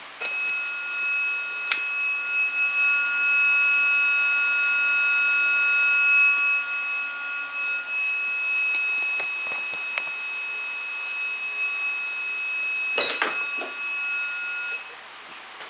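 Heat press timer alarm: a steady, high-pitched electronic buzz signalling that the pressing time is up. A few clunks from the press handle being lifted come just before the buzz cuts off suddenly near the end.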